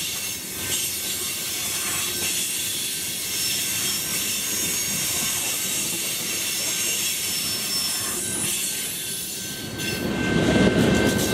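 Hopper cars of a Canadian Pacific coal train rolling past with a steady rumble and high, thin wheel squeal. Near the end the last car goes by, the squeal drops away, and a louder low rushing sound takes over.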